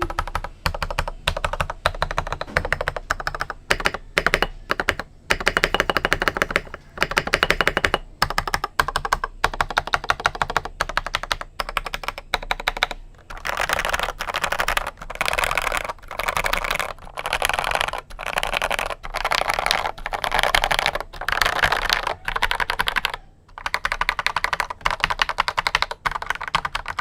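Typing on a custom NCR-80 mechanical keyboard with stock, factory-lubed Gateron Pro Milky Yellow linear switches, its case fitted with PE foam and tape mods. Runs of quick keystrokes with short pauses between them, then from about halfway through, short bursts of very rapid key presses about a second long with brief gaps.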